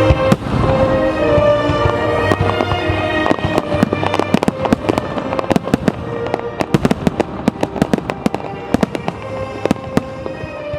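Fireworks bursting, with a big bang at the start and then a rapid run of sharp bangs and crackles that comes thickest in the middle and later part. Music plays steadily underneath.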